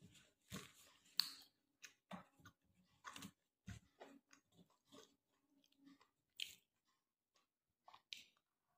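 A person chewing food with the mouth close to the microphone: quiet, irregular wet smacks and clicks, one or two a second.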